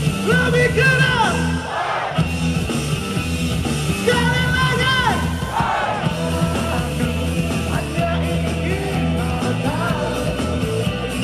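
Live pop band music played loud through the PA: a male lead singer's held, wavering vocal lines over a steady bass and the rest of the band.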